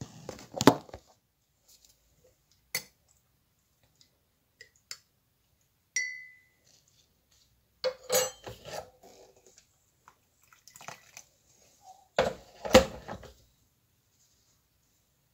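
Scattered knocks and clinks of small household objects being handled, in irregular clusters, with one short ringing clink about six seconds in.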